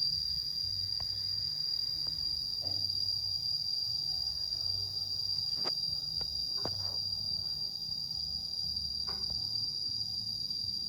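Steady high-pitched insect trill, unbroken throughout, with a few faint clicks about halfway through.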